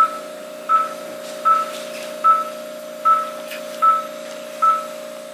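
Operating-room patient monitor beeping with each heartbeat: short high beeps evenly spaced about three-quarters of a second apart, roughly 78 a minute, over a steady low hum.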